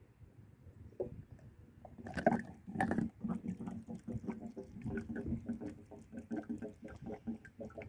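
A bottle of fuel additive glugging as it empties upside down into a car's fuel filler neck. It starts with a clatter about two seconds in, then runs as a quick, irregular string of gulps, about three a second.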